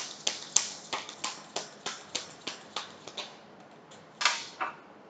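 Tarot cards being shuffled by hand: a steady run of sharp card clicks, about three a second, then a short rustle of cards a little past four seconds in.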